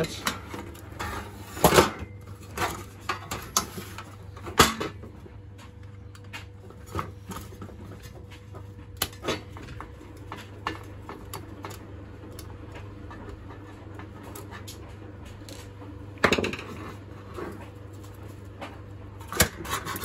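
Sheet-metal heater parts being handled and knocked together, with scattered clicks and clunks and a screwdriver working at the terminal screws. The loudest knocks come about two seconds in, near five seconds, and about sixteen seconds in.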